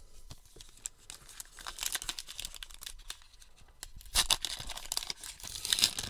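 Foil wrapper of a baseball card pack being torn open and crinkled, in a run of short tearing and crinkling noises that grow louder about four seconds in.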